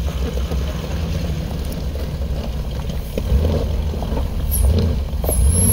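Off-road 4x4's engine running low and steady as it crawls a log obstacle, getting louder about three seconds in as it comes up on the throttle.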